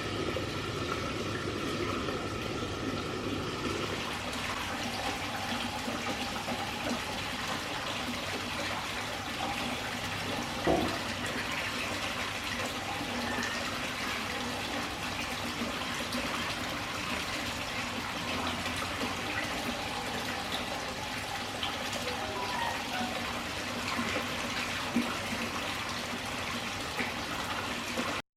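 Water pouring and splashing steadily from a small indoor waterfall into its aquarium basin, with a single knock about eleven seconds in. The sound stops abruptly near the end.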